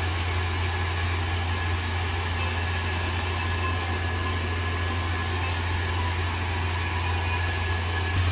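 Steady low hum with a thin, faint high tone above it and a light hiss, unchanging throughout.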